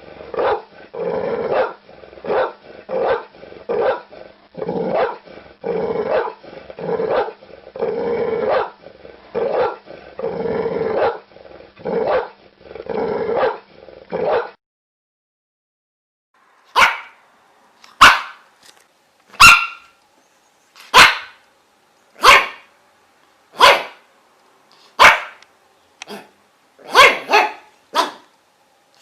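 Dog barking: for about the first half, a run of deep barks at about two a second. After a pause of about two seconds come single, sharper and brighter barks, about one every second and a half.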